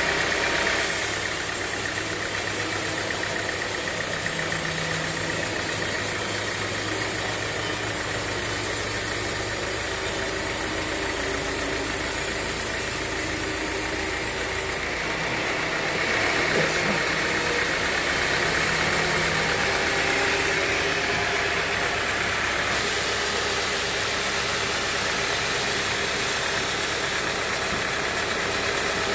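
Band sawmill machinery running with a steady mechanical drone; its tone shifts a few times, about a second in, around the middle, and later on.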